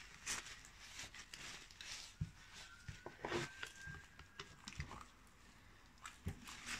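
A gloved hand rubbing old grease off a driveshaft's CV joint with a rag: soft, wet wiping and smearing strokes with a few light knocks.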